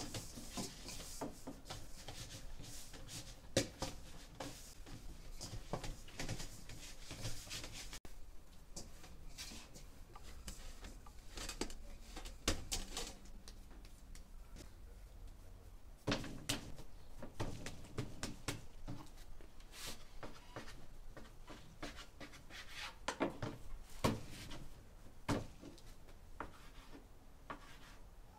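Hands kneading soft baklava dough in a stainless steel bowl: rubbing and squashing sounds with scattered short knocks against the bowl.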